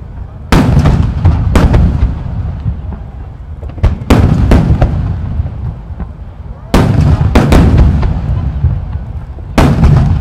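Large 30 cm (shakudama) aerial firework shells bursting one after another: about nine sharp booms, some in quick pairs, each trailing off in a long low rumble.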